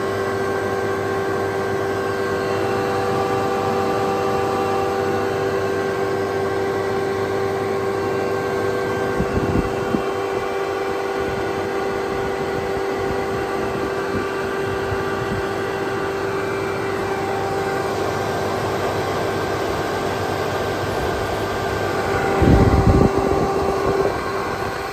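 Hydrovane HV02 rotary vane air compressor running steadily, driven by its electric motor, giving an even hum with a clear steady tone. A brief low rumble comes about nine seconds in, and a longer, louder one near the end.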